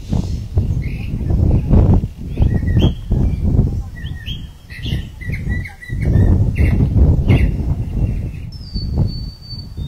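Small birds chirping repeatedly over a loud, uneven low rumble, with one high whistled note held near the end.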